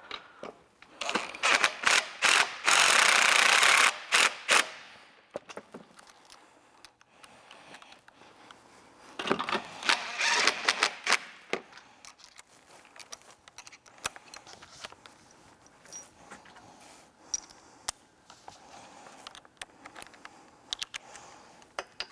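Impact driver running in the tongue jack's mounting bolts in two spells, the longest about three seconds and starting about two seconds in, a shorter one about nine seconds in, with clicks and clinks of the tool and hardware between. The bolts are being run in but left a little loose so the holes can still be aligned.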